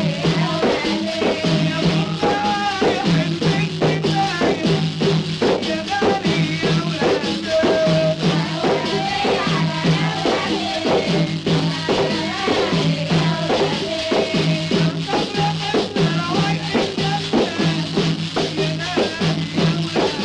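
Egyptian zar ritual music: a fast, even beat on hand drums and a jingling tambourine over a low repeated note, with a melody on top.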